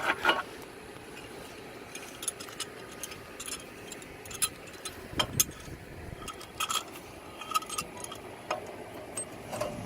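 Scattered light metallic clicks and clinks of a steel C-clamp being handled and fitted against a car's brake caliper, some with a brief ring.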